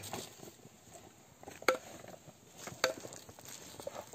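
Machete blade chopping meat on a wooden log: two sharp chops a little over a second apart near the middle, with lighter knocks around them.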